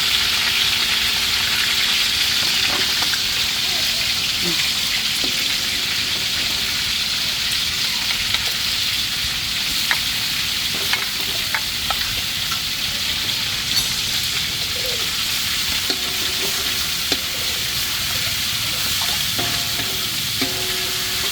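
Food sizzling steadily in hot oil in a pan, with occasional light clicks of a utensil stirring it.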